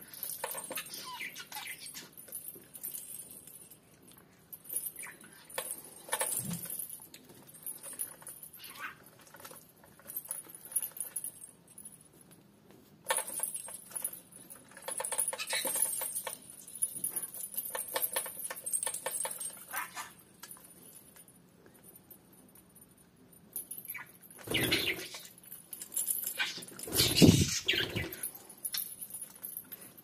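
Small metal bells hanging on a Venetian mask jingling and rattling in irregular bursts as a budgerigar climbs about on it. The loudest burst comes about three-quarters of the way through.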